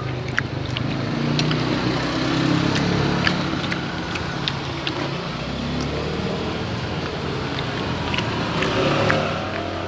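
Road traffic passing with engines running, a steady low rumble, with scattered light clinks of a metal spoon against a ceramic bowl.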